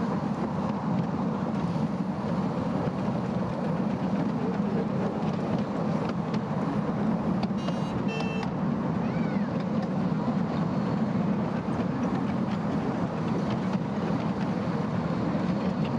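Steady rumble of a 7¼ inch gauge miniature steam train running along its track, heard from the passenger carriages. About halfway through, a brief high-pitched tone sounds twice, followed by a short chirp.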